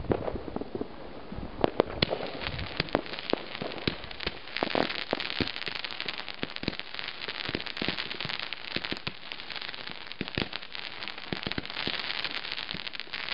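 Thunder Finale five-stage consumer fireworks battery (cake) firing. A few sharp bangs come about two seconds in, then a dense stream of rapid pops and crackling as shells launch and burst.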